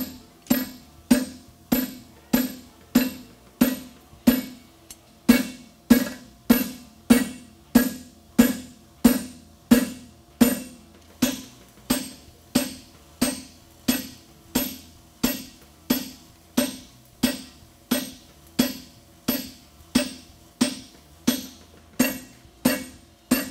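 Hammer blows on a handled fuller driven along the nail groove of a red-hot steel horseshoe on an anvil, forging the shoe's fullering. Steady strikes about two a second, each with a short metallic ring, with one brief pause about four seconds in.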